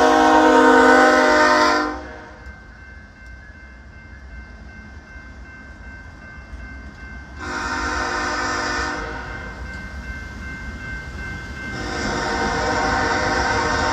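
Locomotive air horn blowing for a grade crossing: a long chord blast that cuts off about two seconds in, a second blast of about a second and a half in the middle, and a third starting near the end, over a low rumble.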